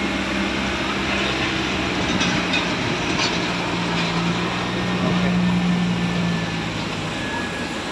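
Steady roar of airport apron noise from jet aircraft and a baggage tractor towing carts past, with a low hum that grows louder in the middle.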